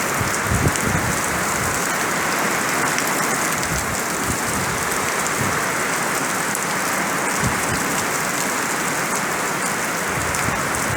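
Heavy rain pouring steadily in a windstorm, with a few brief low gusts of wind buffeting the microphone.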